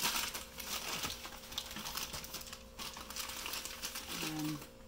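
Crumpled white packing wrap crinkling and rustling in irregular bursts as a drinking horn is pulled out of it by hand.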